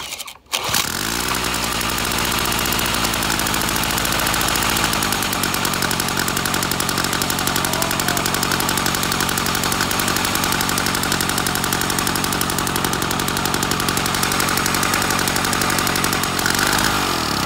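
Victa 160cc two-stroke engine on a Tilt-A-Cut lawn edger, pull-started and catching within the first second, then running steadily. The engine is running well after restoration.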